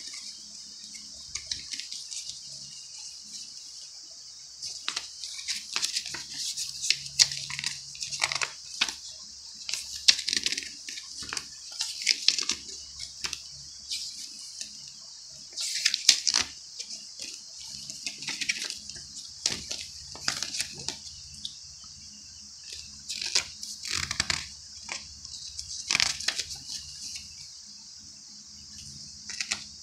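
Paper inserts and a promotional booklet rustling and flapping as they are leafed through by hand, in irregular crinkles, over a steady high hiss.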